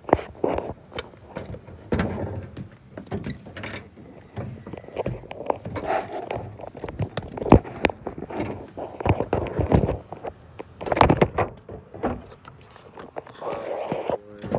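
Irregular clicks, knocks and clatter of hand tools and a battery hold-down strap being worked on a car battery, with handling noise mixed in.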